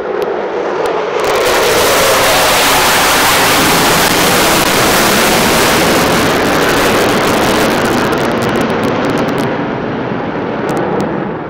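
Formation of military jets flying past overhead: a loud jet roar that swells within the first two seconds, holds, and fades away near the end.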